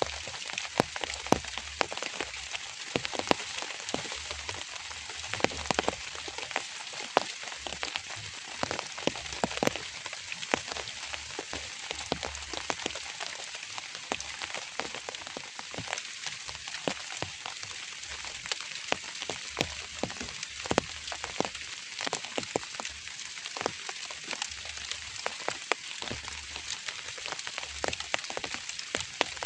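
Drizzle falling: a steady hiss scattered with many sharp, irregular taps of single drops striking a surface.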